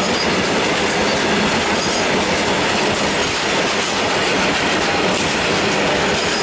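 Loaded coal freight train's open wagons rolling past at speed close by: a steady, loud wheel-on-rail rumble and clatter.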